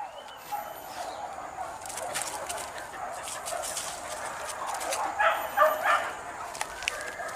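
Hunting dogs on a wild boar hunt giving a quick run of short, yelping barks about five seconds in.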